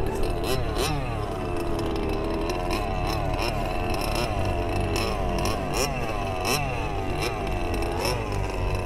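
Motor of a radio-controlled speedboat running fast on the water, its pitch rising and falling over and over as the throttle and turns change, with scattered short clicks.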